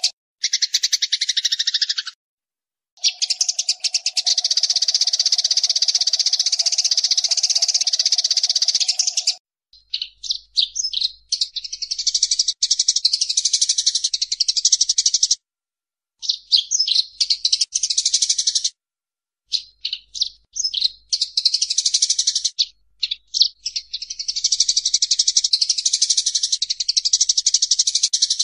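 Eurasian tree sparrows chattering and chirping fast and harshly while fighting. The calls come in dense bursts, several seconds long, cut by short breaks of silence.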